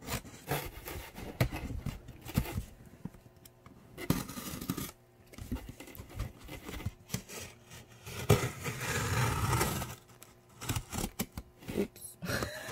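Hands working inside a cardboard shipping box with a small metal cutting tool: irregular scraping, rubbing and knocks against the cardboard and packing, with a longer stretch of rustling, tearing noise about eight seconds in.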